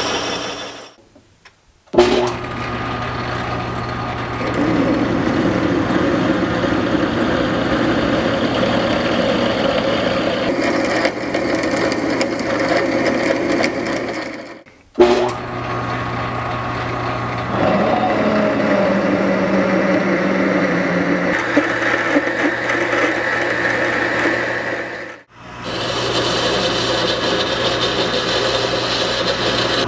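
Metal lathe turning a steel blank, its motor running steadily under cutting load. The tool first faces the surface, then a twist drill drills the centre hole, then a boring tool enlarges it. The sound cuts out briefly about a second in, again at about 15 seconds and again at about 25 seconds, restarting abruptly after the first two gaps.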